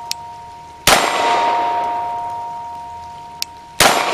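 Two 9mm Glock 19 pistol shots about three seconds apart, each hitting a steel target. Each hit sets the steel ringing on a steady two-note tone that slowly fades.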